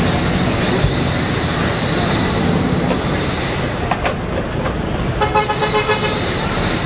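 Steady street traffic noise, with a vehicle horn giving a short run of rapid toots about five seconds in.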